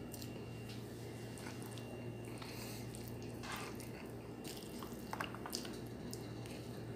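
Fingers squishing and mixing rice with canned sardines in tomato sauce: scattered short wet squelches and clicks over a steady low hum.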